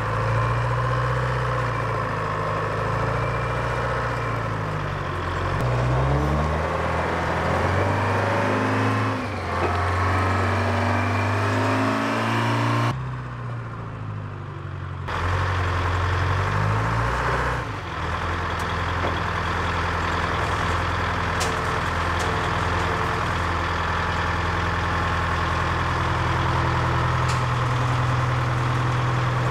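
Engine of a large ex-US Army rough-terrain forklift working under load, revving up and down several times, then running at a steadier pitch as it carries the load.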